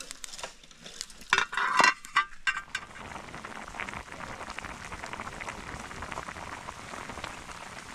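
A few clinks and knocks from a small metal cooking pot, then from about three seconds in a steady bubbling as meat stew with added water boils in the pot over a wood fire.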